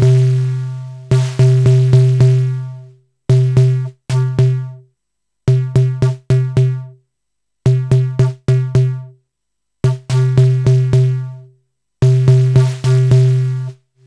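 Noise Engineering Tymp Legio Eurorack drum module sounding low pitched synthesized drum hits in quick bursts of about four, one burst roughly every two seconds. The ring-out after each burst grows longer and shorter from burst to burst as an LFO sweeps the decay time.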